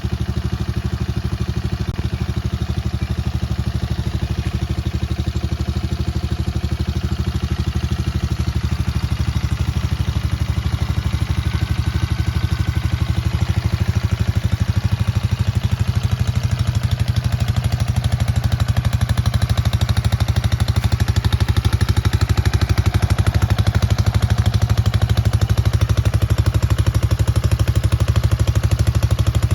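Pentora 200 EFI ATV's fuel-injected 200 cc engine running steadily at an even speed, growing a little louder over the stretch.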